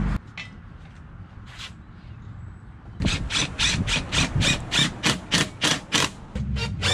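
Cordless driver run in quick, evenly spaced short bursts, about three a second, starting about three seconds in, as it drives the outboard motor's mounting bolts into the transom.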